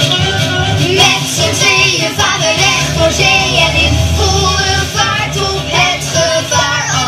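Upbeat children's cartoon song: music with sung voices.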